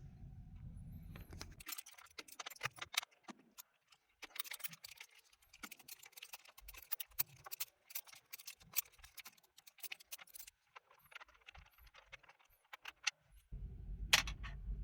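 Quiet, irregular metallic clicks and clinks of hand tools and bolts being worked on a car's dashboard cover, scattered through most of the stretch.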